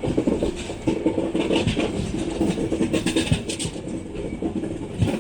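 Passenger express train running on the line, its wheels clattering over the track with a steady running hum underneath.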